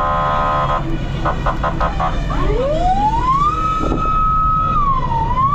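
Fire engine's horn ending a held blast, then a quick run of about five short blasts, then its siren winding up into a steady high wail that dips briefly near the end and climbs back.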